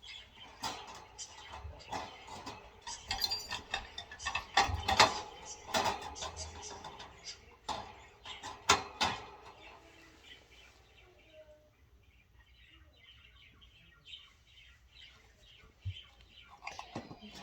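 Wire bird cage parts clinking and rattling metal on metal as the cage is put together: many sharp clinks through the first half, loudest about five and nine seconds in, then it goes quiet, with a few clinks again near the end.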